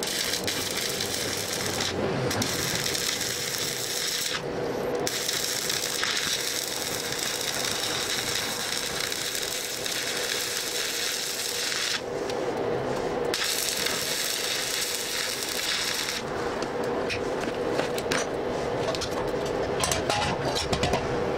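Stick (arc) welding on scrap steel: the arc crackles and sizzles in three runs with short breaks, over a steady hum. About two-thirds of the way through the crackle stops and gives way to irregular clicks and scrapes.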